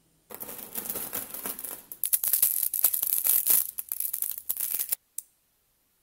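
Many small neodymium magnetic balls (Neoballs) clicking and rattling against each other as they are handled, a dense clatter that grows louder after about two seconds and stops suddenly near five seconds, followed by one last click.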